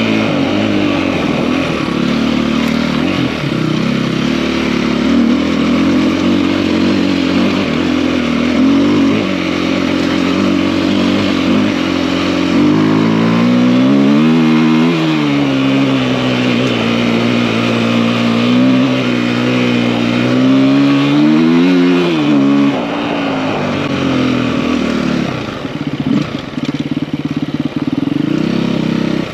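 KTM EXC-F four-stroke single-cylinder enduro engine, bored out with a 280 big bore kit, running under way. It revs up and eases off twice in the middle, then drops lower and runs unevenly for a moment near the end before steadying.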